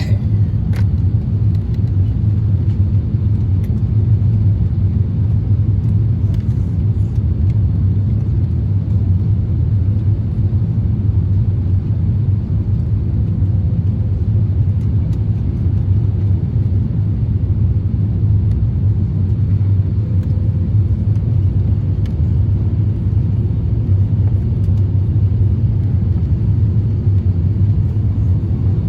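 Steady low rumble inside the cabin of an Airbus A350-1000 airliner in flight, the even drone of airflow and engines.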